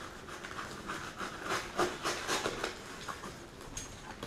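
Utility knife slitting packing tape and scraping along the edge of a cardboard box: a run of short, irregular scratchy rasps.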